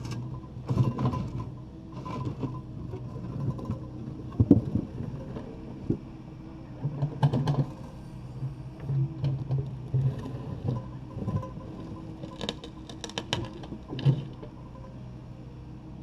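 Takeuchi TB260 excavator's diesel engine running steadily while the bucket knocks and scrapes against broken concrete, with scattered clanks and a quick cluster of knocks near the end, then just the engine.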